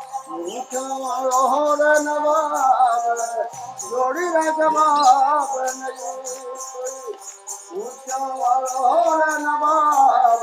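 Background music with a sung or sustained melody over a steady shaker-like rhythm.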